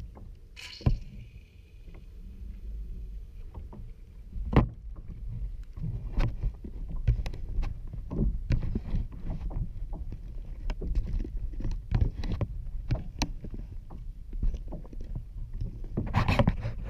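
Water slapping and lapping against the plastic hull of a kayak, over a steady low rumble, with frequent short sharp slaps and knocks.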